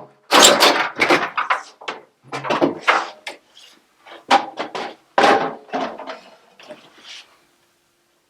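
A run of irregular knocks and clatters from hard washing-machine parts and tools being handled and set down during disassembly. They stop about seven and a half seconds in.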